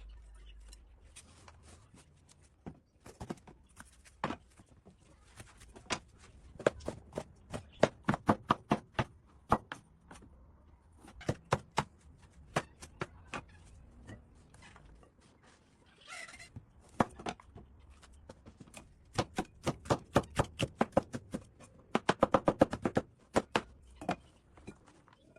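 Kitchen knife chopping on a cutting board: runs of quick knocks, several a second, with short pauses between runs.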